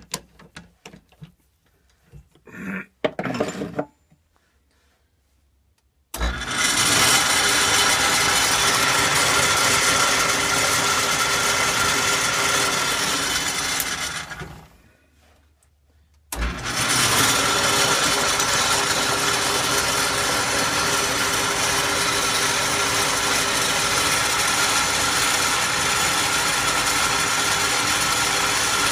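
Lathe spinning the bent crankshaft of a 1977 Briggs & Stratton engine to check its runout: it starts suddenly, runs steadily, winds down to a stop, then starts again and runs on. The crank wobbles about 20 thou out of true. A few light clicks and knocks come before the first start.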